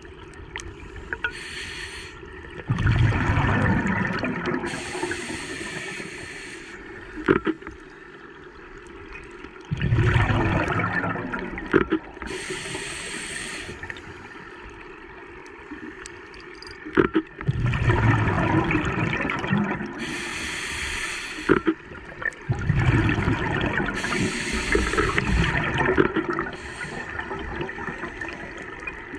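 Scuba diver's regulator breathing underwater: a thin hiss on each inhale, then a burst of rumbling exhaust bubbles on each exhale. About four breaths, one every six to seven seconds, with a few small clicks between them.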